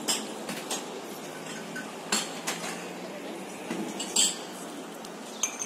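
Open-air square ambience: a steady murmur of distant voices and footsteps with scattered light clinks and taps, the loudest about four seconds in and another just before the end.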